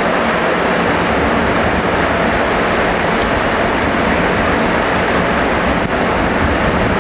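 Heavy rain pouring down steadily as a dense, even hiss with no break in it.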